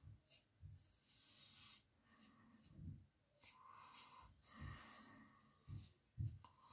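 Faint, short scraping strokes of a double-edge safety razor with a BIC blade cutting through lathered stubble on the upper lip and chin, with a few soft low thumps near the end.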